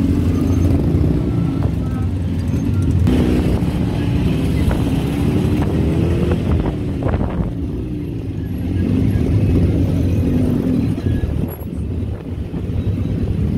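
Motor vehicle engine running while riding through street traffic, its pitch rising and falling a few times around the middle, with motorcycle and car engines close by.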